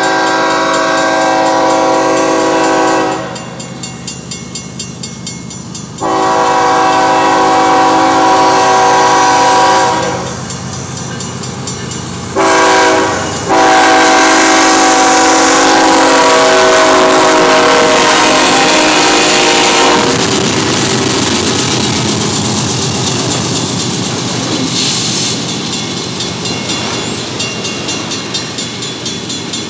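Horn of a BNSF GE ES44C4 locomotive sounding the grade-crossing signal: two long blasts, one short and a final long one held for about six seconds. The locomotives and autorack cars then pass close by, a heavy rumble with wheel clatter, while a crossing bell dings steadily.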